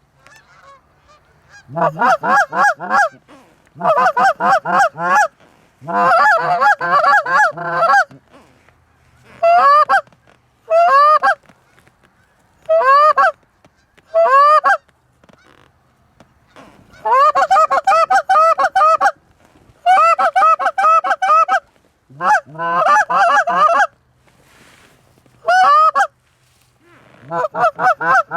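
Canada goose honking in fast runs of clucks and honks, several voices overlapping at times. The runs come in bursts of one to three seconds with short pauses between.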